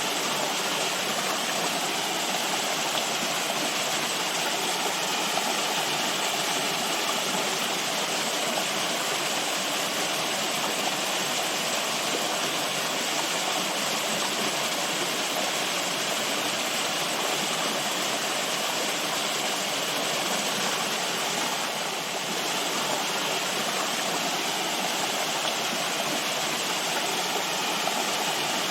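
Running water rushing steadily in an unbroken hiss, as from a stream or small cascade.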